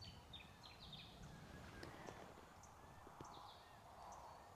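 Faint bird calls, short repeated chirps and whistles, over a quiet outdoor background.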